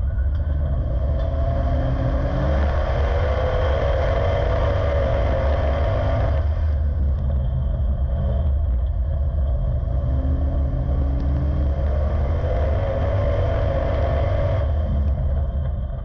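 Street stock race car's V8 engine heard loud from inside the cockpit at racing speed on a dirt oval. The revs climb about two seconds in and again about ten seconds in, and ease off around six and fifteen seconds in as the driver lifts for the turns.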